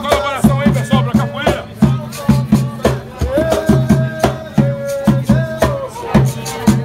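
Music with a regular drum beat, shaker-like percussion and a held, wavering melody line.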